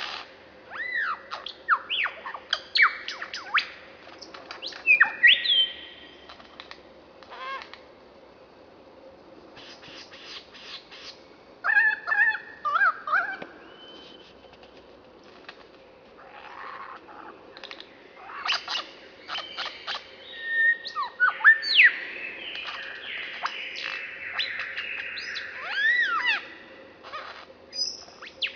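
Male superb lyrebird singing its display song: a fast jumble of sweeping whistles, sharp clicks and harsh notes, coming in bursts with short lulls, much of it mimicry of other sounds.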